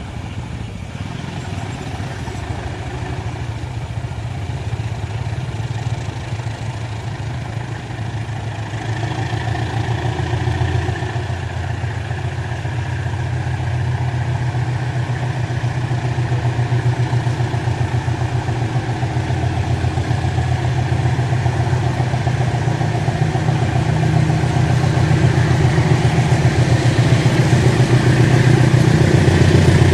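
Diesel-electric engine of a CC 201 locomotive, a steady low rumble that slowly grows louder as the train approaches.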